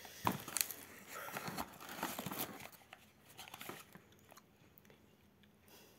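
Cardboard shipping box being torn open by hand, its packaging crinkling and rustling, with sharp cracks and tears in the first few seconds and quieter handling after.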